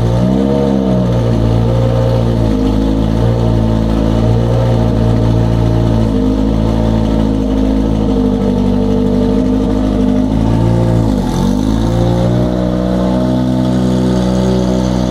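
Ford RS200 race car's turbocharged 2.4-litre BDTE four-cylinder engine idling on its first start-up. The revs rise and fall briefly at the start and dip sharply and recover about eleven seconds in.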